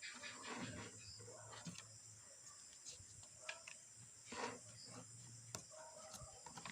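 Faint, scattered taps, knocks and scrapes of cut cable tray sections being handled and fitted together, with a sharper knock at the very end.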